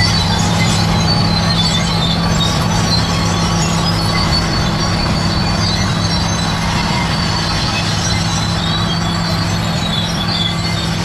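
Crawler bulldozer's diesel engine running steadily under load, with a high-pitched squeal from its steel tracks over the low engine note.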